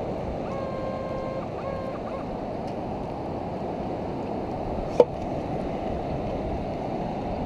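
Surf washing at the water's edge with wind on the microphone, a steady rushing noise. A faint steady tone sounds for about a second and a half near the start, and a single sharp click comes about five seconds in.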